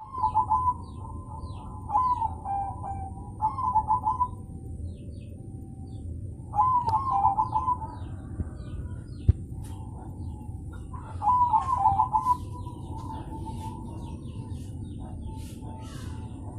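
Caged zebra doves (perkutut) cooing in short, rippling, repeated phrases, five loud bouts with quieter cooing between. Faint, short, higher chirps come in and out, and there is a single sharp click about nine seconds in.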